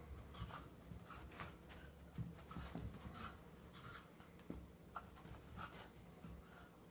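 Faint, irregular scuffling and short breaths as a Bedlington Terrier play-wrestles with a cat on carpet.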